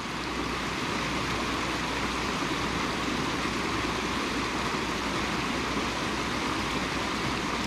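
Water of a small rocky creek rushing over cascades, a steady even rush.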